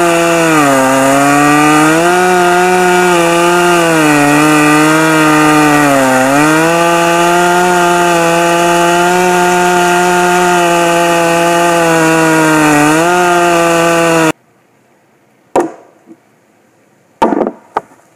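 Stihl MS 441 Magnum two-stroke chainsaw with a 36-inch bar running under load in red oak, its engine pitch sagging and recovering a couple of times as the long bar bogs in the cut. It cuts off abruptly about 14 seconds in, followed by two heavy knocks and a lighter one from a splitting maul striking the oak.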